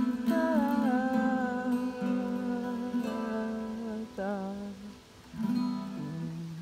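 Acoustic guitar music with long held tones and a few new notes. The tones slide down in pitch about half a second in and waver around four seconds. After a short dip the music comes back briefly and fades out at the end.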